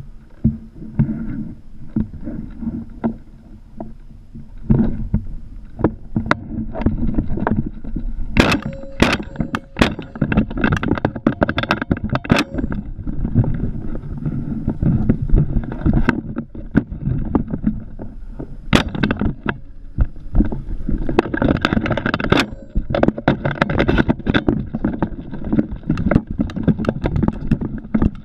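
Handling noise from a camera on a shotgun barrel carried low through grass: steady rustling and rumble, with many irregular knocks and clicks.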